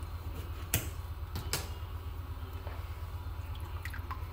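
Kitchen handling at a wok: a few sharp clicks about a second in, over a steady low hum. Near the end, faint ticks as lemon juice starts dripping into the liquid in the wok.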